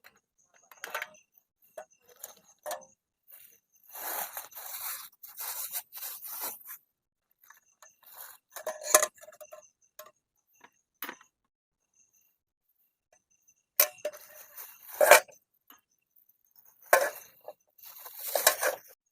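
Irregular handling noises of camp gear: scrapes, rustling and light clinks, in bursts of a second or so with short clicks between. The louder bursts come about nine seconds in and again twice near the end.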